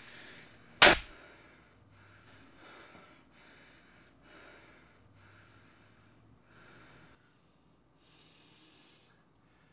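A single sharp slap about a second in, then a person's soft heavy breathing, a breath roughly every second, with a longer breath near the end.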